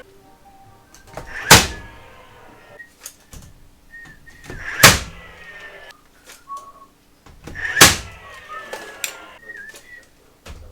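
Nails being driven into wood framing: three sharp bangs about three seconds apart, each with a brief high ring after it, and light knocks and clicks of handling lumber between them.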